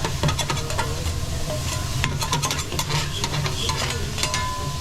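Food sizzling on a teppanyaki flat-top griddle, with metal spatulas scraping and clicking against the steel many times throughout.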